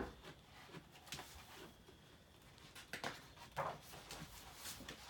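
Soft rustling and light clicks from a picture book's paper pages being handled and turned, a little louder a few seconds in.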